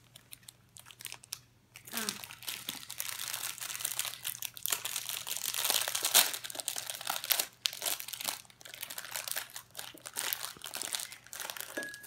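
Clear plastic wrapper crinkling and crackling as hands pull and work at it to get it open, starting about two seconds in and going on in an irregular stream.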